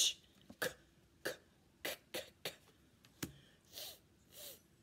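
A woman voicing isolated phonics sounds: a run of about six short, clipped 'k' sounds for the letters 'ck', then near the end two breathy 'th' sounds.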